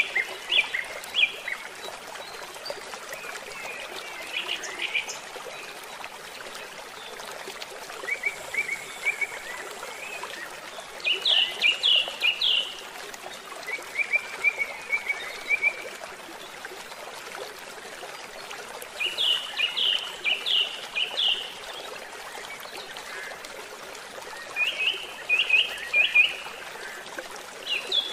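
A songbird singing short phrases of quick, rapidly repeated chirps every few seconds, over a steady background hiss.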